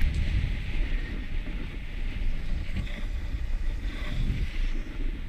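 Wind buffeting a helmet-mounted camera's microphone during a downhill ski run, a steady low rumble, with the hiss of skis sliding over packed snow.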